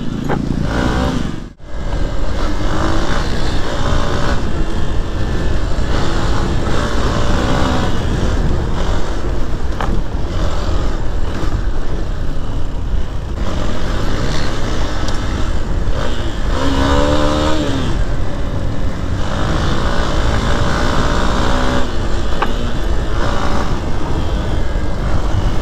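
Motorcycle engine running under way, with heavy wind rumble on a helmet-mounted microphone. About two-thirds through, the engine note briefly rises and falls.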